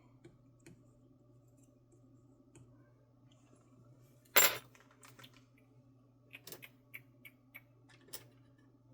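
Small metal tools and parts being handled on a workbench: one loud sharp knock about four seconds in, then a run of light clicks and clinks, over a steady low hum.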